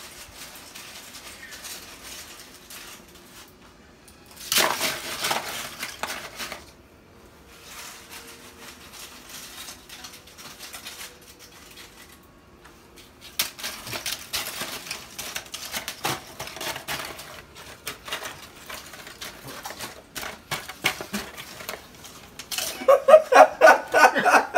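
Dishes and kitchen utensils clattering and scraping at a counter in irregular bursts, with a burst about four seconds in, a longer stretch from about thirteen seconds on, and the loudest handling near the end.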